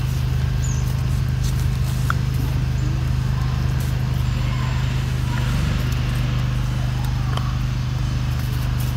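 A steady low mechanical hum, even in pitch and level, with a few faint clicks over it.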